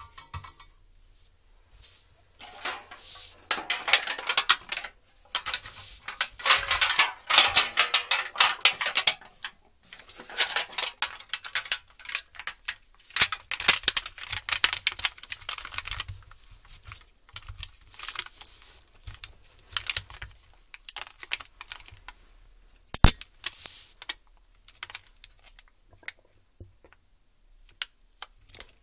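Dense clicking and crackling as a laptop keyboard, stripped of its keycaps, is handled and turned over on a plastic sheet: its metal plate and foil backing rattle and crinkle. The clicks come in long busy stretches, then sparser, with one sharp loud click past the middle.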